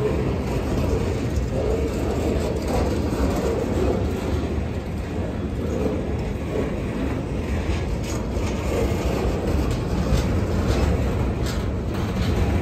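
Freight train of flatcars loaded with garbage containers rolling past: a steady rumble of steel wheels on rail, with a few sharp clicks in the second half.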